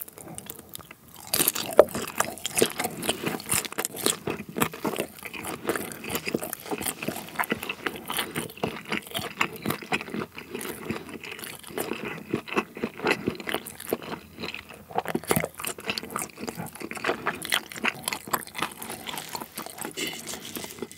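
Close-miked chewing of a sotteok skewer's rice cake and sausage: a dense, steady run of chewing clicks and smacks, starting about a second in. The rice cake has gone hard and very chewy.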